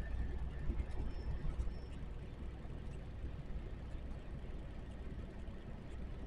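Trailer truck driving along the road: steady low engine and road rumble.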